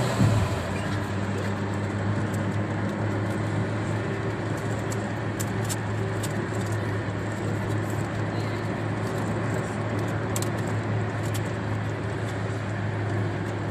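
Steady road and engine drone of a car driving through rain, heard from inside, with scattered sharp ticks of raindrops hitting the windshield. A brief thump just after the start.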